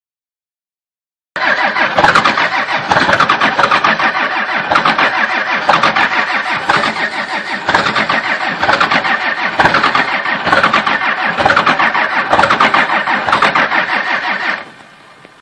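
A cold engine cranking over on its starter: a rhythmic pulsing that begins after about a second of silence and drops away about a second before the end.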